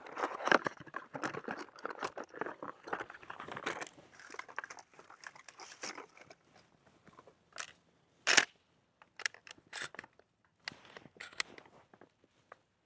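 Shotgun shells handled out of a cardboard ammo box and pushed one by one into a 20-gauge Benelli M2 semi-automatic shotgun. There is a dense run of small clicks and rustles for the first few seconds, then scattered clicks, with one sharp click about eight seconds in.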